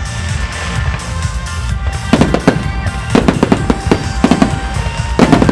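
Music playing, then from about two seconds in, fireworks shells bursting and crackling over it in several quick clusters of sharp reports.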